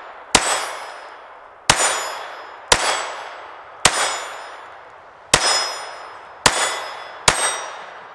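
Seven shots from a Ruger LCP II Lite Rack .22 LR pocket pistol, fired at an uneven pace roughly a second apart. Each is a sharp crack with a ringing, decaying tail.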